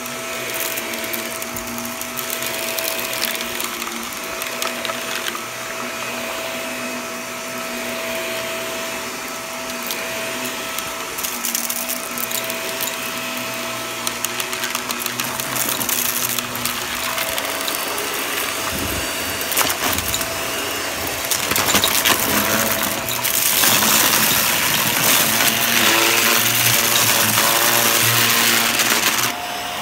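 Shark upright vacuum cleaner running on carpet, its motor a steady whine, with scattered clicks and rattles of debris being sucked up. About two-thirds through it gets louder and hissier.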